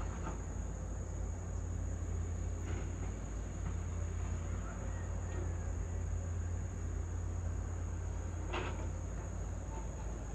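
Steady low rumble of a distant hydraulic excavator's engine at work, under a steady high shrilling of crickets. A single knock sounds about eight and a half seconds in.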